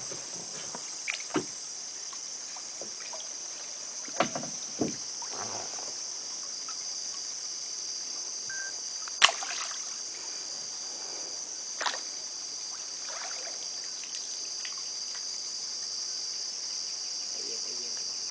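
A steady high-pitched insect chorus, with a few sharp knocks and splashes from a canoe and its paddle; the loudest knock comes about halfway through.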